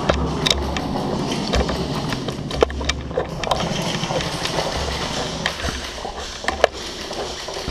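Airsoft guns firing on semi-auto across the field: scattered, irregular sharp cracks of shots and BB hits over a steady background of noise and low hum.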